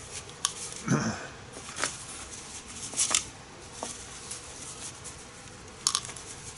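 About half a dozen short crinkles and light clicks of handling: a paper shop towel rubbed around an aluminium foil pie pan, and small steel ball bearings shifting in a plastic pill bottle.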